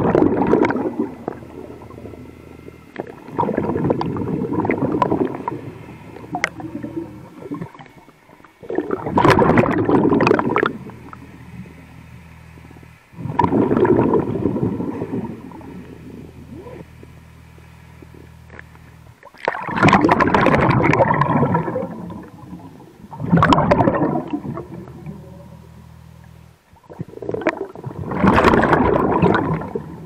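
A diver breathing through a hookah-system regulator underwater: exhaled air bubbles out in gurgling bursts of a second or two, seven times, about every four to five seconds, over a steady low hum.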